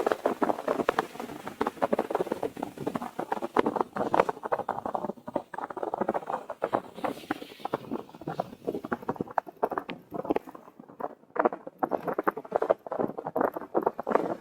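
Car tyres crunching over snow: a dense, irregular crackling of small clicks.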